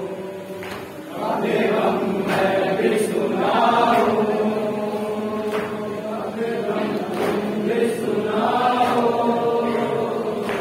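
Men chanting a Shia nauha (lament) together in long held notes. Sharp slaps come every second or so, the beat of matam, hands striking the chest.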